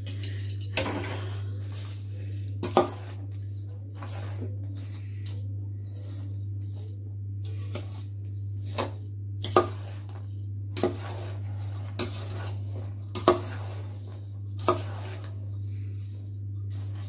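Steel spoon stirring a dry, crumbly flour-and-sugar mixture in a stainless-steel bowl: soft scraping with sharp metal clinks every second or two as the spoon strikes the bowl. A steady low hum runs underneath.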